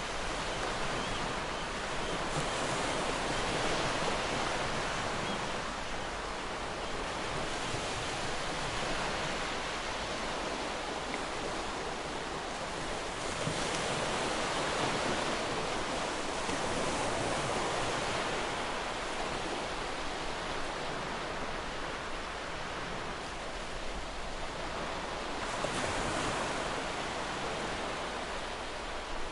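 Sea waves breaking and washing on a shore, a continuous surf hiss that swells and eases every few seconds.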